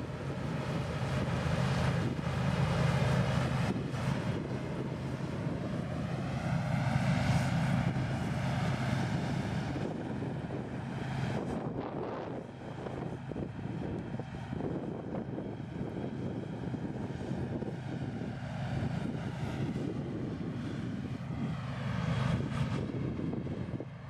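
New Holland TX32 combine harvester working under load as it cuts a standing crop: a steady drone of engine and threshing machinery that swells and eases slightly as the machine moves.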